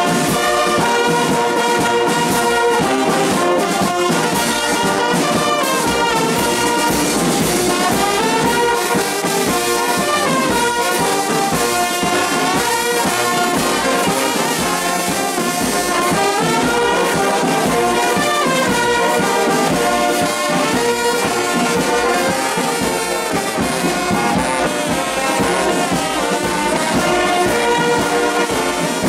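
A large brass band playing live, with trumpets, trombones, sousaphones and saxophone sounding together and cymbals marking a steady beat.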